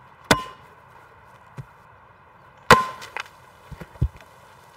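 A Diet Coke bottle rigged with Mentos slammed down onto the ground twice, about two and a half seconds apart, each a sharp smack with a short ring, then a few lighter knocks. The rocket fails to launch.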